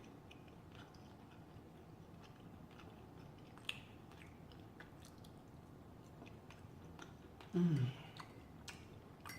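A person chewing food close to the microphone, with soft, wet mouth clicks throughout and a sharper click a little under four seconds in. A short, falling voiced sound comes about three quarters of the way through.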